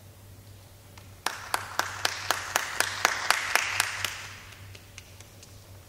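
Brief applause from a small group, with one close pair of hands clapping sharply and evenly about four times a second. It starts about a second in and dies away within about three seconds.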